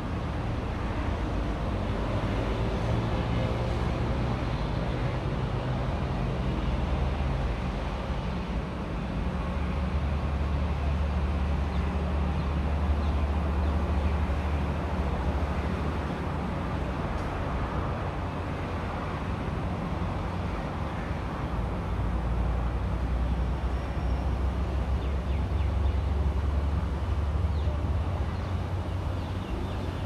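Steady low rumble of vehicle engines from road traffic, swelling louder for a few seconds twice.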